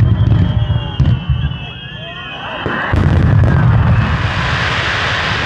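Fireworks display: shells booming in quick succession, with a high whistling tone over the first couple of seconds. About three seconds in, the booms grow louder and a steady hissing crackle joins them as large gold bursts open.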